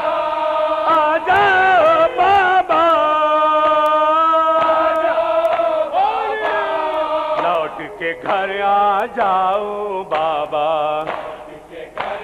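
Men singing a noha lament into microphones, drawing out long held notes and wavering runs, with a lower voice joining in the second half. Scattered sharp slaps come from the crowd's chest-beating (matam).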